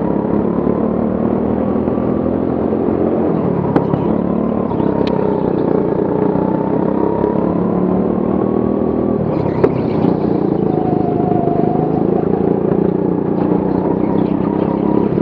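Go-kart engine running hard, its note rising and falling with the throttle through the corners, heard from on board the kart. Two short sharp knocks, about 4 and 10 seconds in.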